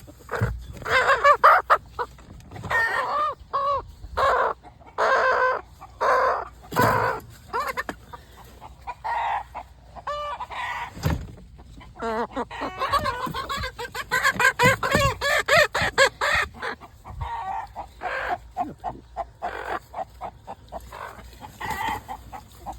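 Chickens clucking and calling, many short pitched calls in quick clusters one after another.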